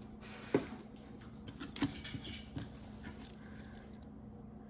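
Costume jewelry being handled and set down on a pile, with a few light clicks and clinks of metal and plastic pieces.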